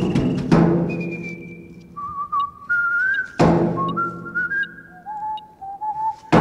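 Soundtrack music: a slow whistled tune of single held notes that step up and down in pitch, over a deep struck note that rings out twice, about three seconds apart.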